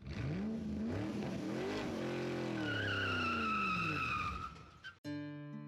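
A vehicle engine revving, its pitch rising and falling, with a tire squeal from about halfway through; it cuts off suddenly near the end, where acoustic guitar music begins.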